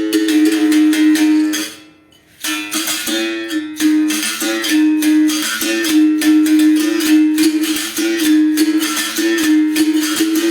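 Bamboo berimbau being played: the stick strikes the steel wire in a quick rhythm over a strong sustained low note, with brief jumps to a higher note. The playing stops for a moment about two seconds in, then carries on.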